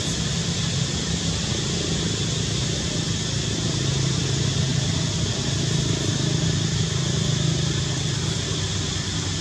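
Steady outdoor background noise: a low, even rumble with a steady high hiss above it, unbroken throughout.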